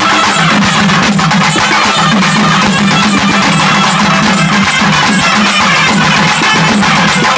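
A naiyandi melam folk band playing loudly: wind instruments carry a melody over double-headed drums beaten rapidly with sticks, all together without a break.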